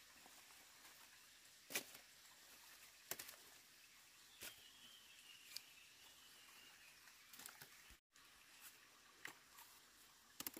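Occasional soft knocks and rustles of freshly dug rhizomes being handled and dropped into a woven bamboo basket, a second or two apart. A faint, thin wavering whistle comes in for about two seconds near the middle.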